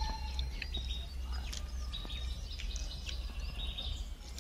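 Small birds chirping and twittering, with short high calls scattered through, over a steady low background rumble.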